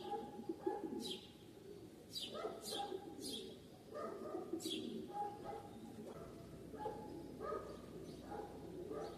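Birds calling: several sharp high chirps, each sweeping quickly downward, in the first five seconds, over lower, shorter calls that go on throughout.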